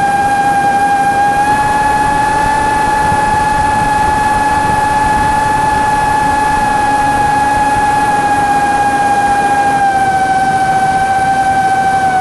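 A motor running steadily with a strong high-pitched whine over a rushing noise; the pitch steps up slightly about a second and a half in and eases back down near the end.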